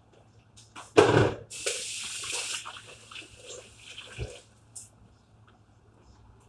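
A kitchen tap runs briefly into a sink, starting with a loud knock about a second in. The water sounds strongest for about a second, then goes on more softly with a thud near the middle before stopping.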